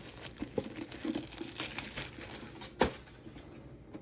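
Plastic wrapping crinkling and tearing as it is pulled off a lunch box tin, with many small crackles. There is one sharper click a little before three seconds in, and the rustle fades over the last second.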